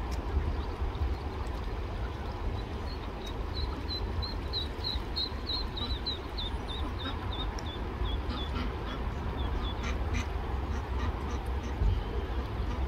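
Eastern spot-billed duckling peeping: a run of short, high peeps, about three a second, that starts a few seconds in, sinks slightly in pitch and stops after about seven seconds. The steady low noise of the flowing stream runs beneath.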